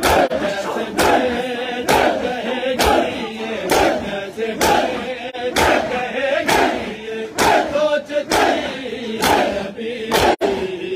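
Hand matam: a crowd of bare-chested men striking their chests in unison, a sharp slap about once a second. Between the beats, many men's voices chant together, keeping time with the mourning rhythm.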